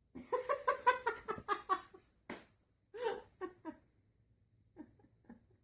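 A person laughing: a quick run of high-pitched giggles, about five a second, then a few scattered short laughs that trail off.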